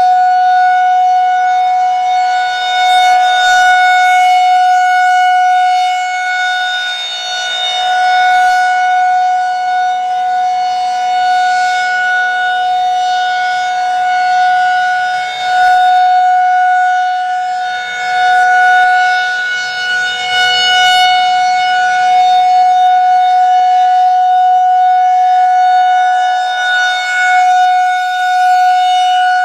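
Federal Signal 2001-SRNB electromechanical siren sounding a steady tone at one constant pitch, its loudness swelling and fading every few seconds as the rotating horn sweeps past. This is a scheduled test of a nuclear power plant's emergency warning siren.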